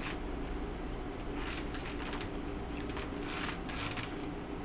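Close-miked eating: a fork picking food out of a foam takeout container, with mouth and chewing noises, over a steady low hum. A sharp click about four seconds in.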